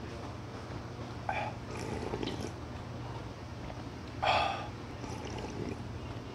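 A person slurping soup broth from a metal ladle: a few short sips, the loudest about four seconds in. A steady low hum runs underneath.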